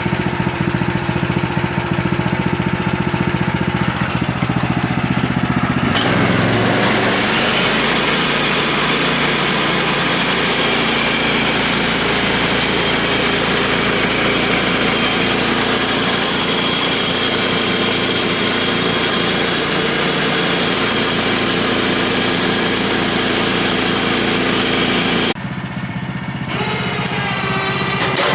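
Petrol engine of a portable sawmill running steadily, then about six seconds in the blade goes into the white pine log and the engine works under load with a loud sawing noise that lasts nearly twenty seconds. Near the end the cut finishes, the sound drops and the engine's pitch shifts.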